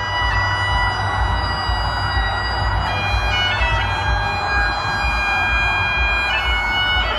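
Bagpipes playing a slow tune: long held notes over a steady drone, moving to a new note about three seconds in and again near the end.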